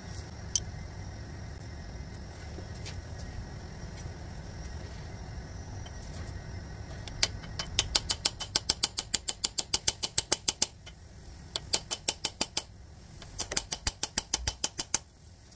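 Rapid light hammer taps on a drift, driving a needle pilot bearing into the end of a VW 2.0 TDI crankshaft, in three runs of about six taps a second that start about halfway through. Before them only a low steady hum.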